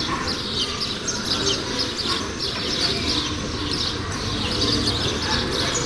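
Many small birds chirping, a dense chorus of short high chirps several times a second, over a low steady rumble.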